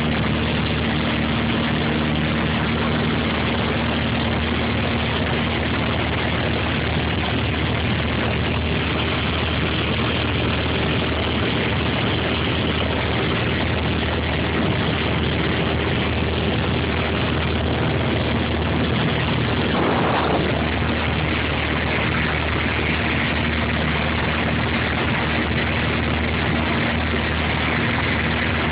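A Piper PA-28's piston engine and propeller running steadily in flight, heard inside the light aircraft's cabin as an even engine tone under constant rushing noise.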